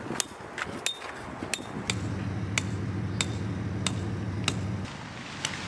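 A metal tent stake being hammered into hard ground: sharp strikes roughly every two-thirds of a second, the first few ringing briefly. A low hum runs underneath for a few seconds in the middle.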